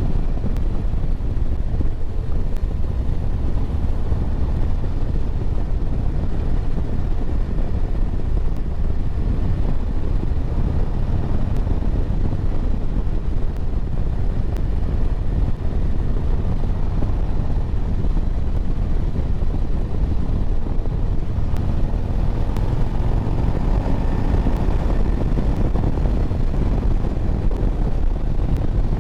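2024 Harley-Davidson Road Glide under way at road speed: a steady rush of wind and engine noise, with a little more mid-range energy around two thirds of the way through.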